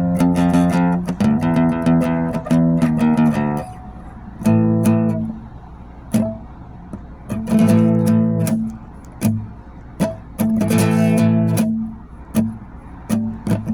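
Guitar strumming chords in short phrases, with brief pauses between them.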